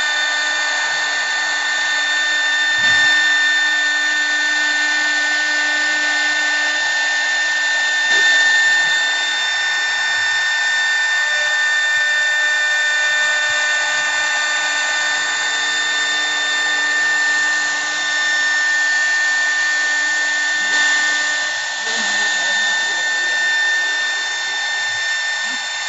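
CNC wood lathe running steadily, with a constant high-pitched whine from its motors over a rushing noise.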